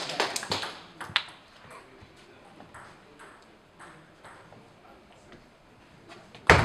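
Table tennis rally: the ball clicking off the bats and table about twice a second, with one loud sharp knock near the end.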